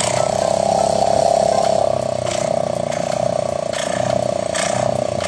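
Small fishing-boat engine running steadily with a rapid mechanical clatter.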